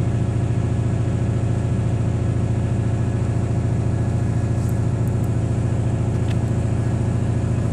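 Hitachi excavator's diesel engine running steadily at a constant speed, with a low even throb.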